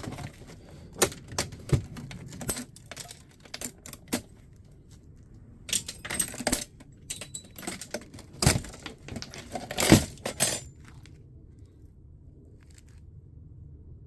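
Small metal parts from a fax machine being dismantled for scrap, clinking and clattering as they are handled and dropped: a series of sharp separate clicks that stop about ten and a half seconds in.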